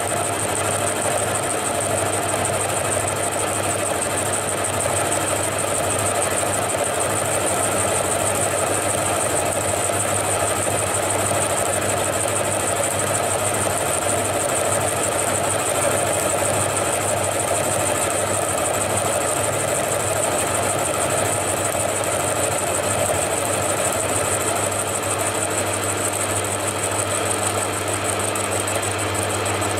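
Orion 4.5 Digit milling machine running steadily with its end mill taking a light facing cut across the end of a round bar. It makes an even low hum with a high whine over it.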